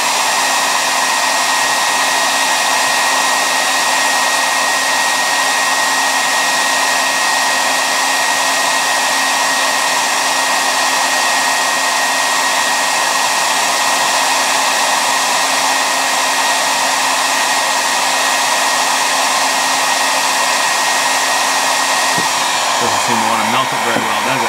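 Handheld hair dryer running on hot, a steady rush of air with a constant high whine, blowing on a 3D printer's extruder to soften hardened PLA plastic clogging the hot end.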